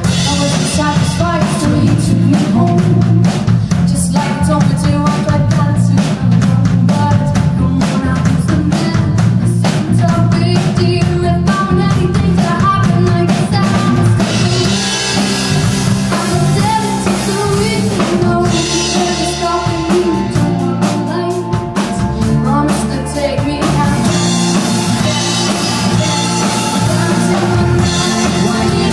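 A live band playing a song: a woman singing lead over acoustic guitars, keyboard and a drum kit, with steady drumbeats and passages of cymbal wash.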